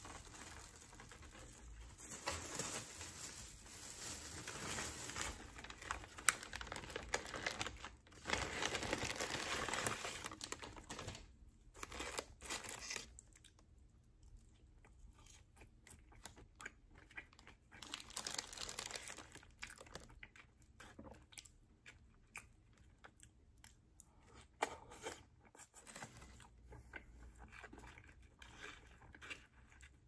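Plastic takeout bag and paper food wrappers rustling and crinkling as the food is unpacked, dense and loudest for about the first ten seconds. After that come quieter scattered rustles and small ticks of the wrappers being handled.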